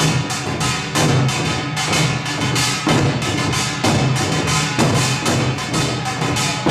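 Music with a percussive beat: a strong hit about once a second with quicker knocks between them, over a steady low tone.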